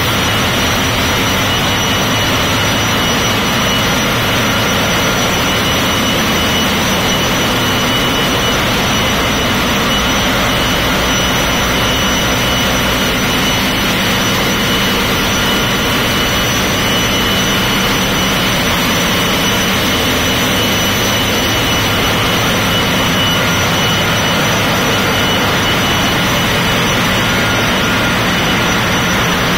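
Engine room machinery on a container ship running at full din: a loud, constant hum of engines and pumps, with a few steady high whines above it.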